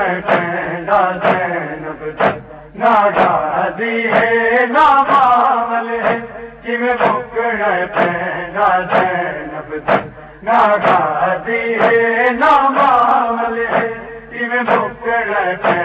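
Male voices chanting a Punjabi noha lament, punctuated by rhythmic chest-beating (matam) strikes about twice a second.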